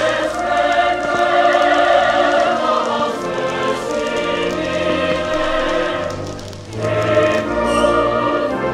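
Added background music: a choir singing long, held notes, with a short dip between phrases about six and a half seconds in.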